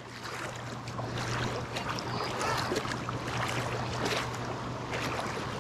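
Water sloshing and splashing as someone wades through a river, over a steady rush of moving water.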